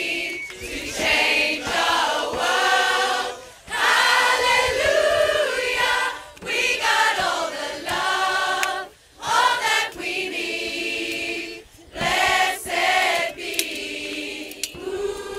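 Large women's choir singing a cappella in phrases of a few seconds each, with short breaks between them about four times.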